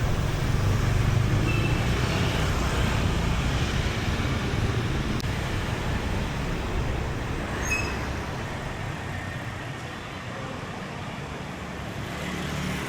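Street traffic: a motor vehicle's engine running close by, its low hum fading away about eight seconds in, over steady street noise.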